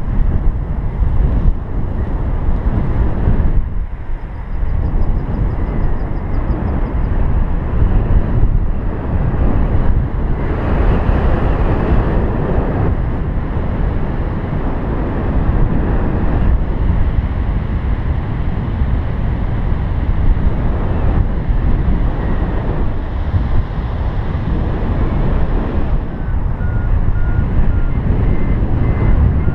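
Wind buffeting the microphone in paraglider flight: a loud, steady rush that swells and dips. Near the end, a paragliding variometer beeps in short tones that step up in pitch, its signal for climbing air.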